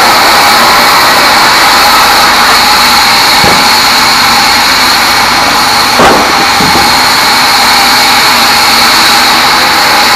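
Log bandsaw running steadily and loudly while sawing small teak logs. A few knocks of timber come about three and a half and six seconds in, the one at six seconds the loudest.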